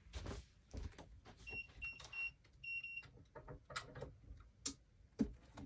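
Electronic keypad of a safe beeping as a code is keyed in: four short high beeps about a second and a half in, then a longer beep just before three seconds. Soft knocks and thumps of handling come and go around them.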